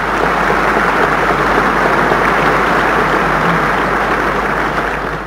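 A large hall audience of several thousand applauding steadily, dense even clapping that dies away near the end.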